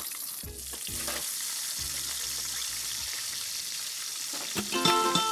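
Food sizzling as it fries in a pan, with a few short knocks from stirring. Plucked-string background music comes in near the end.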